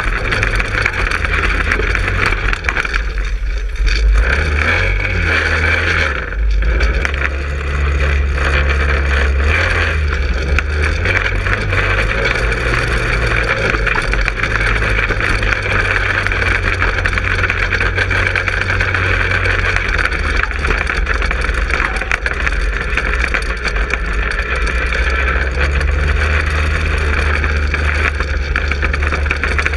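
Manco Helix 150 go-kart's 150cc engine running under way, heard close up from on board. The engine speed eases off and picks up again a few times a few seconds in, then holds steady.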